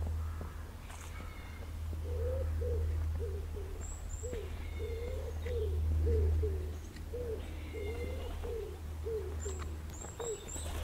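A pigeon cooing: a run of short, low, hollow notes repeated in a phrase for most of the stretch. Small birds chirp thinly now and then above it, over a steady low rumble.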